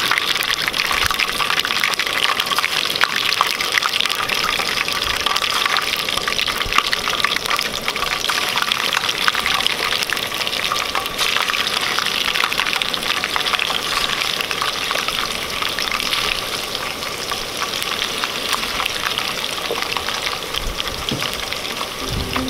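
Seasoned chunks of bass frying in hot oil in a stainless steel pan, a dense, steady sizzle and crackle. It starts suddenly as the first piece goes into the oil.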